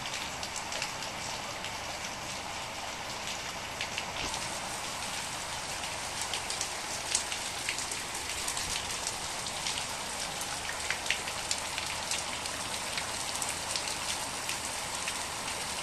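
Rain falling steadily, with many sharp ticks of single drops striking close by, more of them in the second half.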